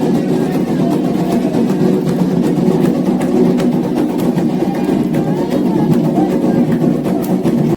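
Candomblé xiré music: ritual drumming with a group of voices singing together, dense and continuous, breaking off abruptly at the very end.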